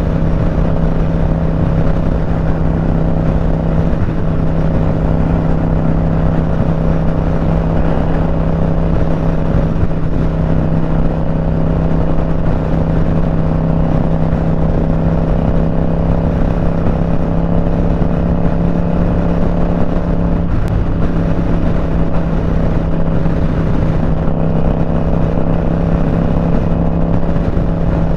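Motorcycle engine running at a steady cruising speed on the highway, heard from the rider's seat as an unchanging drone, with wind rushing over the microphone.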